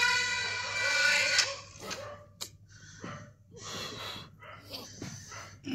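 Sustained film-score music stops about a second and a half in. Short irregular breathy noises and bedding rustles follow, one with a small click: a person stirring under a blanket in bed.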